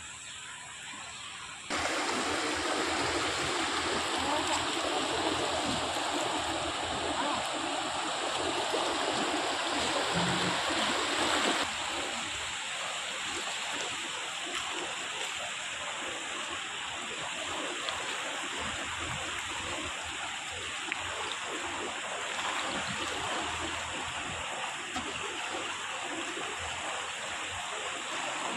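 Fast, muddy floodwater of a rain-swollen river rushing past in a steady roar of water. It jumps louder about two seconds in and eases a little near twelve seconds.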